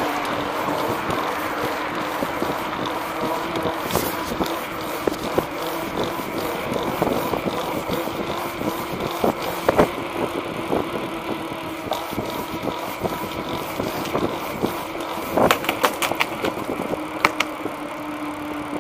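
A treaded tyre rolling along a concrete sidewalk: a steady rumble with a faint low hum, broken by sharp clicks as it runs over the joints in the pavement, several of them in quick succession near the end.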